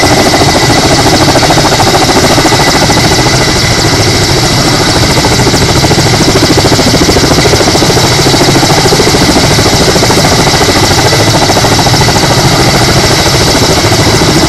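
Kamov Ka-32 coaxial-rotor helicopter hovering low over water while filling its underslung bucket. The rotor blades beat rapidly and loudly over a steady high whine, with the hiss of rotor wash on the water.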